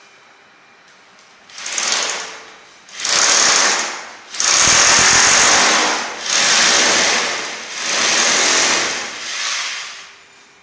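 Electric hammer drill boring into a masonry wall, run in about six bursts with short pauses between, the first brief, starting about a second and a half in and stopping shortly before the end.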